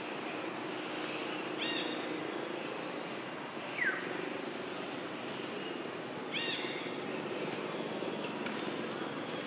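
Outdoor ambience: a steady low background hum, with a bird giving a short arched chirp twice, about five seconds apart, and a single falling whistled note about four seconds in.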